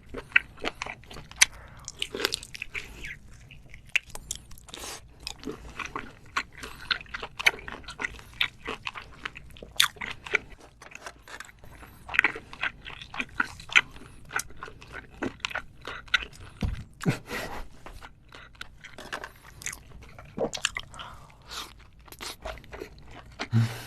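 Close-miked mouth chewing soft seafood (giant octopus and scallop), with frequent irregular sharp, wet clicks and smacks.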